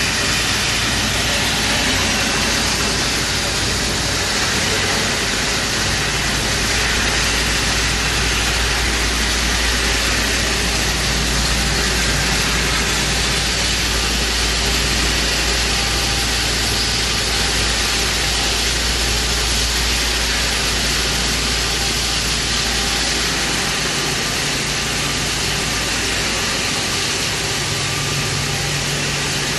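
HGM100L-II grinding mill running steadily while milling pyrophyllite ore into fine powder: a constant loud machine noise with a deep hum underneath, the hum easing a little near the end.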